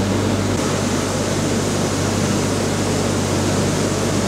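Vixen VM55 pressure-pot blast cabinet blasting raw aluminium parts with aluminium oxide media at low pressure (30–40 psi): a loud, steady hiss over a steady low hum. The hiss gets brighter about half a second in.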